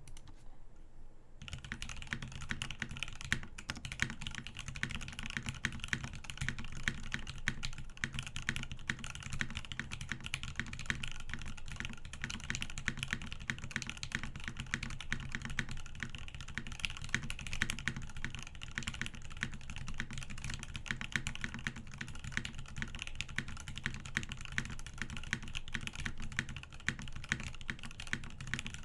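Fast, continuous typing on a custom mechanical keyboard: a top-mounted NRD Kaze prototype case with an aluminum plate, lubed Gateron Ink Black linear switches and SA-profile dye-sub keycaps. The typing starts about a second and a half in and goes on as a dense stream of keystrokes.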